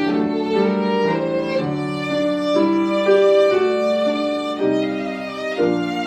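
Violin music: a slow melody of held, bowed notes over lower sustained accompanying notes, cutting off suddenly at the end.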